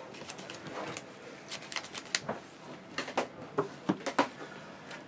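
Yu-Gi-Oh trading cards being handled and shuffled on a playmat: an irregular scatter of soft clicks and snaps.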